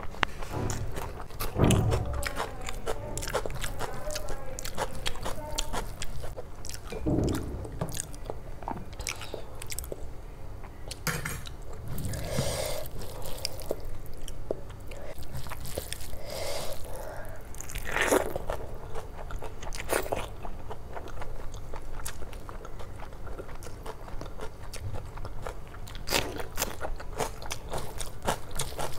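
Close-up eating sounds: a mouthful of rice and chicken curry being chewed, with many short wet smacks and clicks of the lips and mouth, and the squish of fingers working curried rice.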